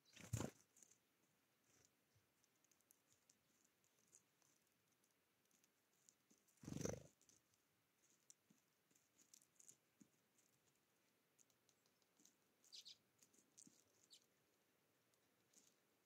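Faint clicks and ticks of a great tit pecking at sunflower seeds on a wooden tray feeder, with two short louder thumps, one near the start and one about seven seconds in.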